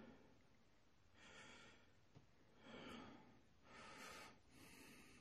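Near silence, with a few faint, soft breaths close to the microphone.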